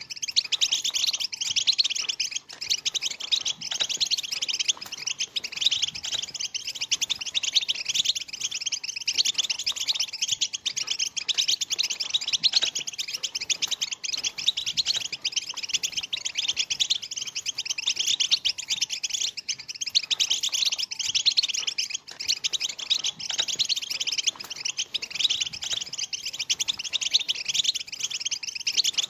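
A flock of European goldfinches twittering together in a dense chorus of rapid, high chirps.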